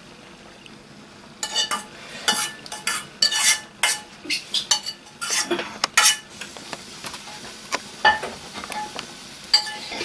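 A metal spoon scraping and clinking against a metal pan as boiled mushrooms are spooned into a glass dish: a quick run of short scrapes for a few seconds, then fewer, over a faint steady hiss.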